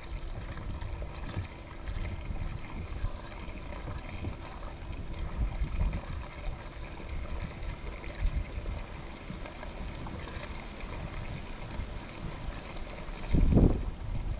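Water trickling and lapping, with wind rumbling unevenly on the microphone and a louder low rush near the end.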